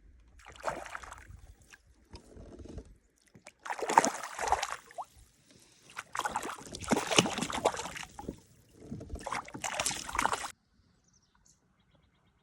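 Water splashing and sloshing in about five irregular bursts as a hooked rainbow trout thrashes at the surface while being landed, stopping abruptly about ten and a half seconds in.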